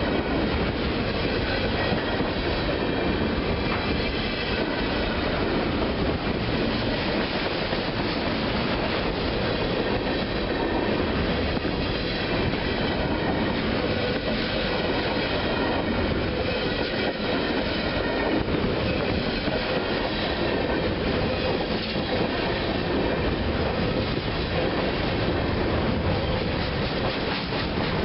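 A railroad train rolling steadily past, its wheels on the rails making a continuous rumbling noise with faint high wavering tones over it.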